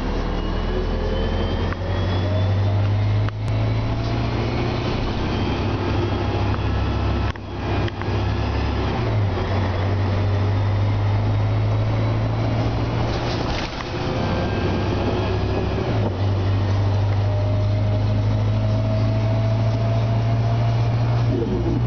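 Cabin sound of a 2003 Orion VII CNG transit bus under way: its Detroit Diesel Series 50G natural-gas engine and Voith DIWA transmission give a steady low drone, with a thin whine slowly climbing in pitch as the bus gathers speed. The drone steps up twice, about nine and sixteen seconds in.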